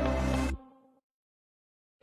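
Background pop song with steady bass and electronic instrumentation, ending abruptly about half a second in and fading out. The rest is dead silence.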